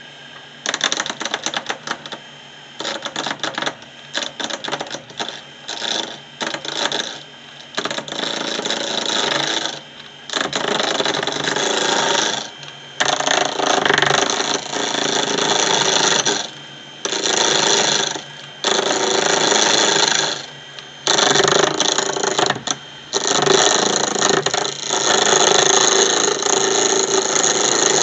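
A turning tool cutting an Ipe pen blank spinning on a wood lathe: a rough, scraping cut that comes in stops and starts, each pass lasting one to three seconds, over the steady hum of the lathe.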